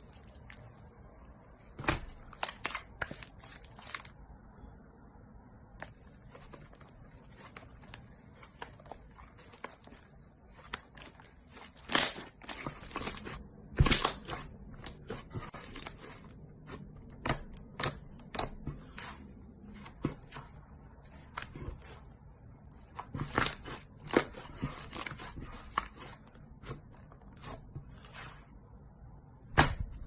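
Hands squeezing, folding and pressing slime: irregular sticky pops and crackles as air pockets burst. The pops come in uneven clusters, some sharp and loud, with the busiest stretches around the middle and near the end.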